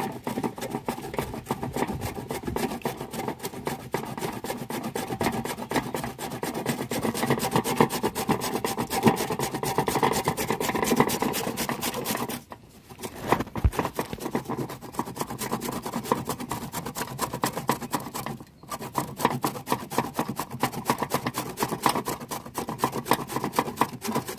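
Raw peeled cassava root being shaved into thin shreds, a fast run of repeated scraping strokes that stops briefly twice, about halfway through and again near the three-quarter mark.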